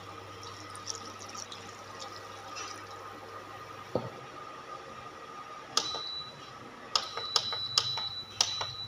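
Water poured into a kadai of sautéed vegetables and stirred in. In the second half come a string of sharp, irregular knocks of the spatula against the metal pan, several with a short high ring.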